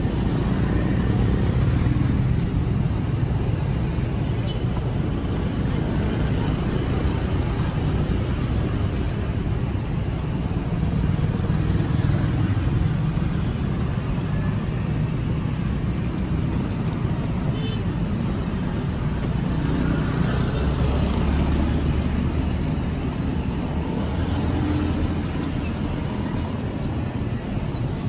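Steady rumble of passing road traffic, with a deeper low hum swelling for several seconds about twenty seconds in.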